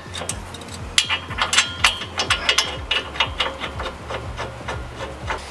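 Hand ratchet wrench clicking in quick, uneven runs as a fastener is turned.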